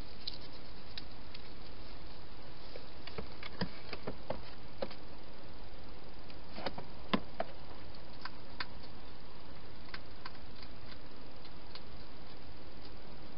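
A hedgehog feeding at its bowls inside a plastic feeding box: irregular sharp clicks and taps, the loudest about seven seconds in, over a steady hiss.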